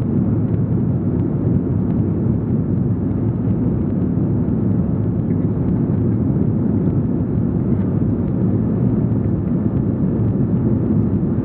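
Steady, dense low rumble of an Airbus A340-300's four CFM56 engines and airflow, heard from inside the passenger cabin.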